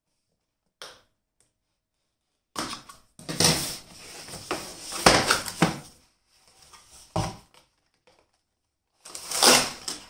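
Cardboard box and plastic packaging of a Philips Hue LightStrip being opened and handled, with irregular bursts of rustling and crinkling. A single light click comes about a second in, and the loudest handling comes from the middle and near the end as the coiled strip is pulled from its insert.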